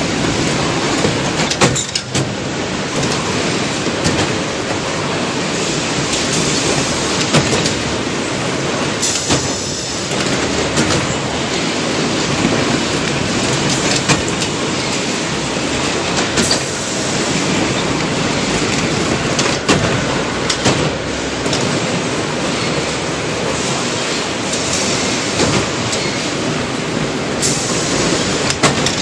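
Vertical core veneer composing machine running: a steady clattering rattle from its chain conveyors and rollers, with frequent sharp clicks and knocks.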